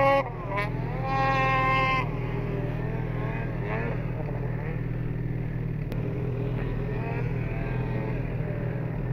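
Snowmobile engine revving hard as the sled climbs and jumps a snow mound. The pitch rises and holds high for about a second, then drops back to softer, wavering revs. A steady low engine drone runs underneath.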